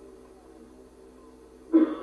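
A pause in a man's recorded talk with a faint steady hum, broken near the end by a short vocal sound from the speaker, about a third of a second long.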